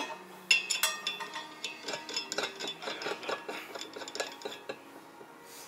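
Scattered metal clinks and taps, some ringing briefly, as a steel ash tray is fitted onto a stainless-steel hookah's stem.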